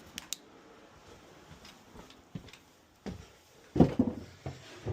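A person moving about: scattered clicks and knocks, the loudest near the end, about four seconds in.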